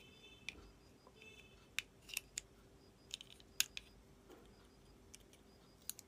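Irregular sharp plastic clicks and snaps as the clip-fastened plastic case of a refrigerator compressor's PTC starter relay is pried open.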